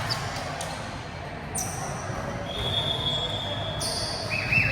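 Indoor volleyball court sounds in a large hall: a steady background of hall noise with high-pitched squeals, one held for about a second past the middle and a warbling one near the end.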